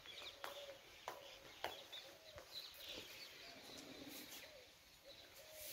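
Faint bird calls: short high chirps repeating throughout, with a few lower wavering calls and some faint clicks.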